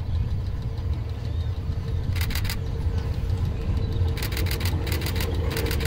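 Vintage metre-gauge electric railcar approaching: a steady low rumble with a faint steady hum, and two bursts of rapid sharp clicking, about two seconds in and again from about four seconds in, growing louder as it nears.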